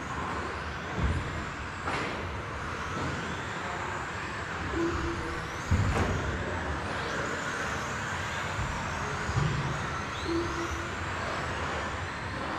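Electric Tamiya TT02 radio-controlled touring cars racing on a carpet track, their motors whining up and down as they accelerate and brake. There are a few sharp knocks and some short repeated beeps.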